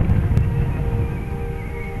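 A fireworks shell bursts with a sharp bang right at the start, and its low rumbling echo fades over the next two seconds. Music with long held notes plays underneath throughout.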